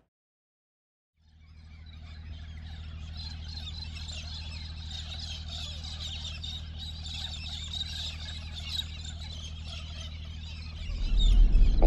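Birds chirping in a dawn chorus over a steady low hum, fading in about a second in. Music starts to come up near the end.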